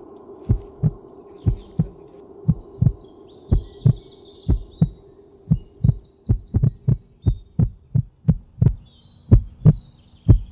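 Heartbeat sound effect: low double thumps in a steady lub-dub rhythm, about one beat a second, over a faint low hum.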